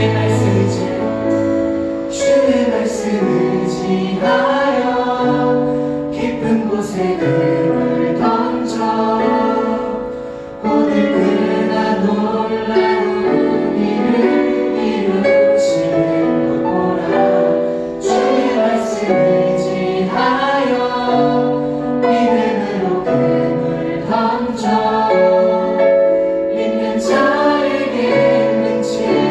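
Church praise team singing a worship song together as a choir, with musical accompaniment.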